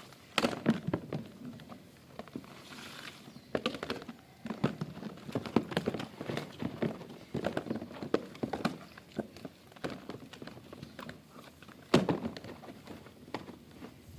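Vacuum cleaner part being handled and washed in water: irregular knocks and clatter, with one sharp knock about twelve seconds in.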